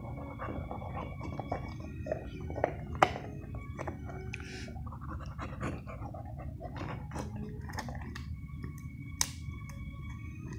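Dog gnawing a rawhide chew: irregular crunching and clicking of teeth on the hide, with a few sharper cracks, the loudest about three seconds in and another near the end.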